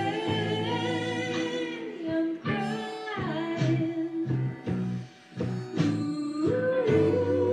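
Harmonica played with cupped hands, a slow melody of held notes, with a note bent downward about three seconds in and a brief break about five seconds in.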